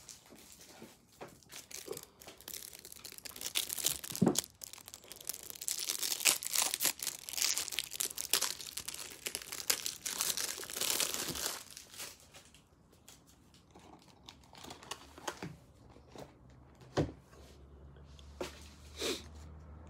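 Cellophane wrapper of a trading-card cello pack crinkling and tearing as it is opened. The crackling is dense and loudest for about the first twelve seconds, then thins to scattered crackles and a few sharp taps.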